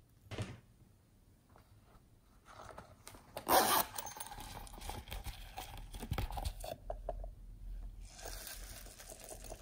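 A plastic zipper on a small pouch unzipped with one short, loud rasp, followed by a couple of seconds of small clicks and rattles as the beads inside shift. Near the end, a second stretch of rustling as the beads are poured out.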